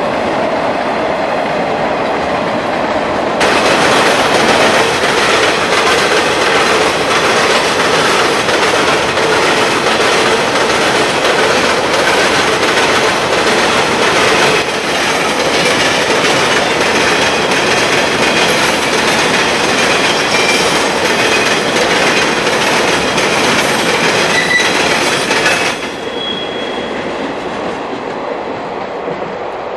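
Empty ore cars' wheels pounding across a railroad diamond crossing: a rapid, unbroken clatter of impacts that sounds more like a machine gun firing. It gets louder about three seconds in and breaks off suddenly near the end, leaving a fainter rumble.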